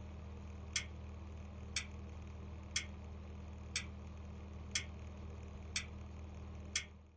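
Clock ticking, one sharp tick about every second, over a low steady hum. Ticks and hum cut off abruptly near the end.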